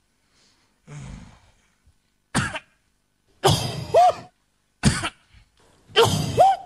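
A woman coughing in a choking fit: four harsh coughs or short bursts of coughs about a second apart, two of them ending in a short squeaky vocal note.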